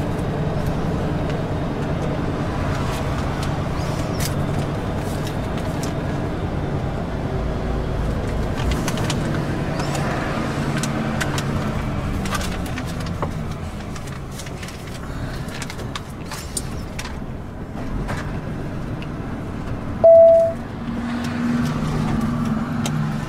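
Lorry engine heard from inside the cab, running steadily as the truck rolls slowly and easing off as it slows. Near the end comes one short, loud beep, the loudest sound in the stretch.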